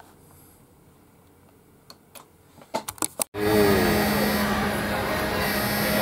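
Quiet room tone with a few soft clicks, then a sudden switch to a ship's hangar: a steady machine hum and crowd chatter as the aircraft elevator of the helicopter destroyer Kaga rises with visitors on it.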